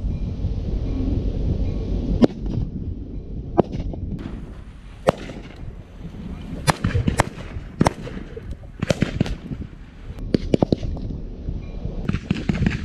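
Scattered rifle fire from WWII reenactors firing blanks: about a dozen sharp cracks at uneven spacing, some in quick pairs, over wind rumbling on the microphone.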